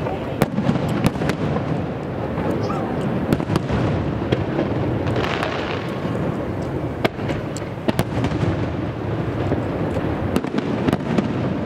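Aerial firework shells bursting in quick succession, many sharp bangs over a continuous rolling rumble that echoes around the hill-ringed bay.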